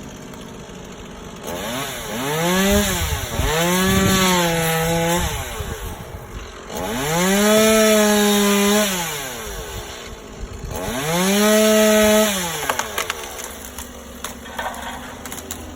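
Chainsaw cutting branches, its engine revved up four times, held at full speed for a second or two each time and dropping back to idle in between.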